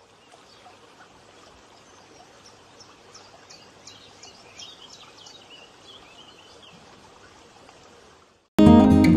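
Faint nature ambience of running water, with small birds chirping in quick runs from about three to seven seconds in. Near the end, acoustic guitar music starts suddenly and much louder.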